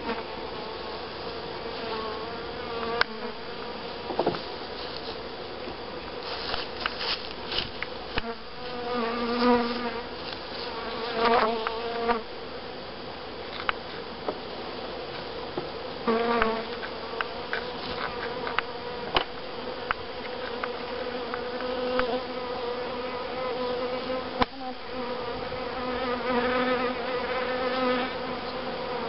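Many honeybees buzzing in a steady hum that swells and fades as bees pass close, with a few scattered sharp knocks.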